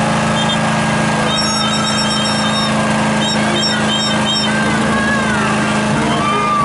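Car engines idling, a steady low hum. Short high-pitched peeps sound over it in the middle, and a few falling whistle-like tones come near the end.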